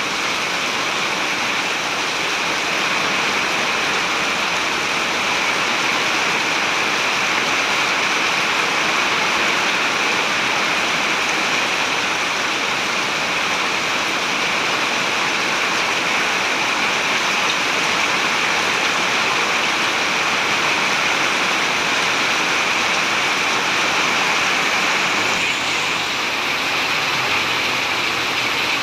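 Heavy rain pouring down steadily in a dense, even hiss, from a tropical storm downpour.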